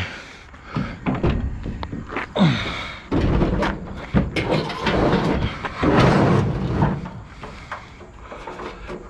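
Heavy scrap being handled onto a truck ramp: a run of knocks and thuds, then a few seconds of scraping and banging about halfway through, before it quiets.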